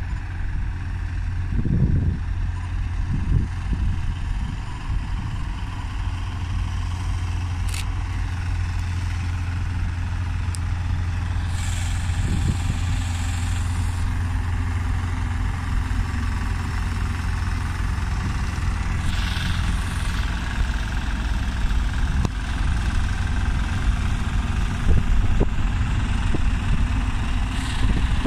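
A heavy engine idling with a steady, deep low rumble. Brief hisses come about twelve and nineteen seconds in.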